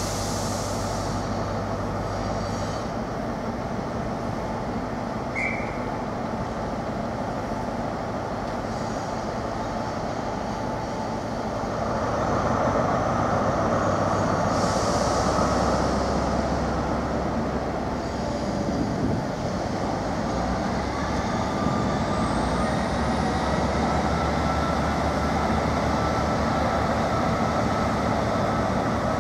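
Class 43 HST power car's MTU diesel engine pulling the train slowly away from the platform. The engine note grows louder about twelve seconds in as power is applied, and a high whistle rises steadily from about twenty seconds on.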